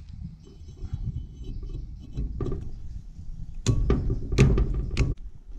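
A new steel brake disc for an Isuzu NQR truck being handled and seated over its wheel hub on a steel tread plate: low rubbing and shuffling, then three sharp metal knocks between about three and a half and five seconds in.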